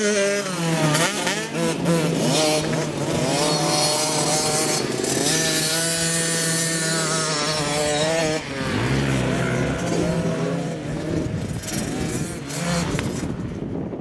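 Small two-stroke youth motocross bike engines buzzing at high revs, the pitch rising and falling over and over as the throttle opens and closes, with a sudden dip about eight seconds in.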